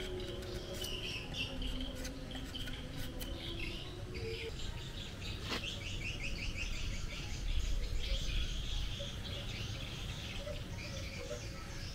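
Birds chirping and calling, with a fast trill of rapidly repeated notes around the middle. There is a single sharp click about five and a half seconds in.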